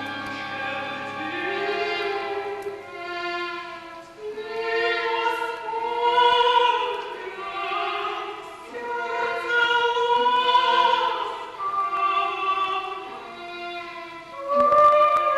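Classical chamber music: a mezzo-soprano singing long, wavering phrases with a solo violin over a chamber string orchestra. Low sustained string notes stop about three seconds in, and there is a sharp, louder entry near the end.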